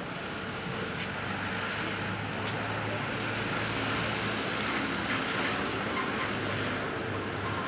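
Steady city street noise: traffic running by, with a constant low hum underneath.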